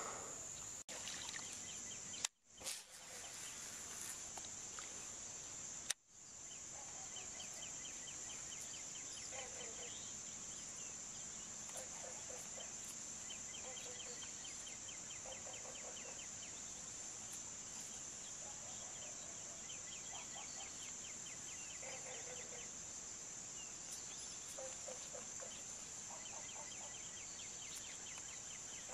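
Faint dawn lakeside ambience: a steady high-pitched insect chorus, with short trilled animal calls repeating about every two seconds. The sound cuts out briefly a few times in the first six seconds.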